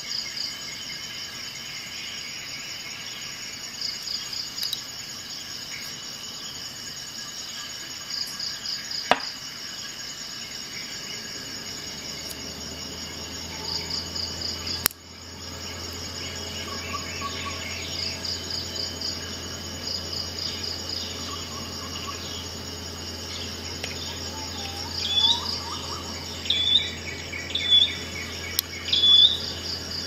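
Insect chirping in short high trills repeated every few seconds, with louder bird chirps joining in near the end. Two sharp clicks stand out, about nine and fifteen seconds in.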